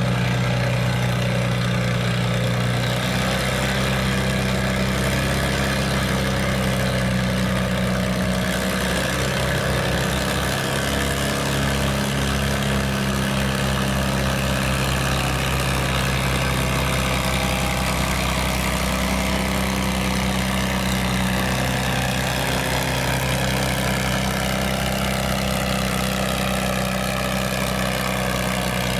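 Farm tractor's engine running steadily at a tractor pull, a deep, even hum with slight shifts in pitch.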